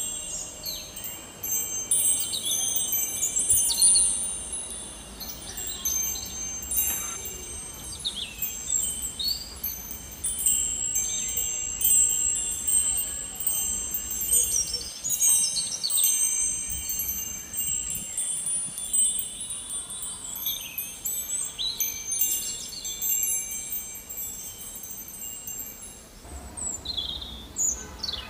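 Wind chimes ringing continuously: many overlapping high, sustained metallic tones, with short bird-like chirps scattered among them.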